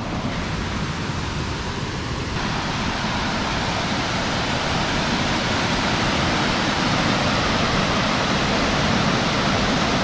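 Steady rushing roar of the Kalhatty waterfall heard across the valley. About two seconds in it becomes fuller and brighter, and it grows slowly louder after that.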